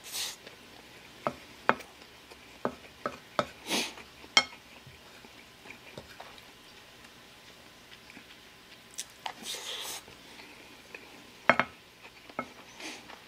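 Wooden spoon knocking and scraping against a ceramic plate as fried rice is scooped up: a scattering of sharp clicks with a few short scraping sounds.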